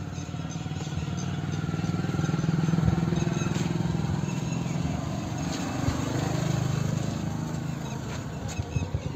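An engine running steadily with a fast, even pulse, growing louder about three seconds in and then easing off slightly.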